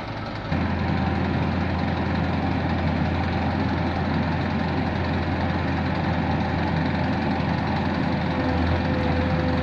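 Heavy engine of road-paving machinery running steadily, stepping up louder about half a second in. A steady whine comes in near the end.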